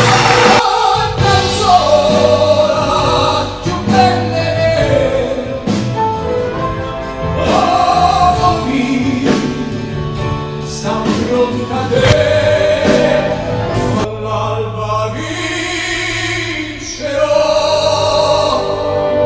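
A man singing a song with long held notes over band accompaniment.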